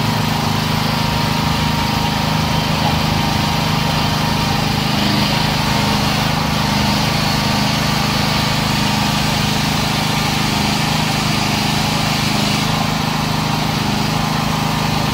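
Hisaki LP6500B generator's 420cc single-cylinder OHV four-stroke petrol engine running at a steady speed.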